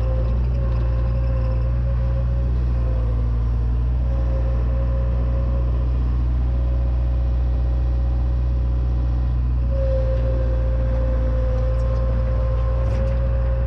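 John Deere 270 skid steer's diesel engine running steadily under the operator, heard from inside the cab, with a steady whine over it that fades about four seconds in and comes back stronger about ten seconds in.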